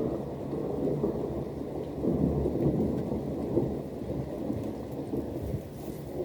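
Thunder rumbling over steady rain, the rumble swelling about two seconds in and easing off after.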